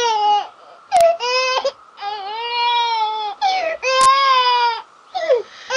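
Cartoon baby dragon crying: a string of high, baby-like wails, some falling in pitch, with two short sharp clicks between them, about a second in and about four seconds in.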